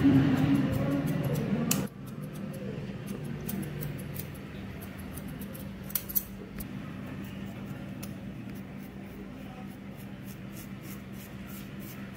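Barber's steel scissors snipping through long hair in many quick, irregular snips, with a steady low hum underneath. A louder pitched sound fills about the first two seconds and cuts off abruptly.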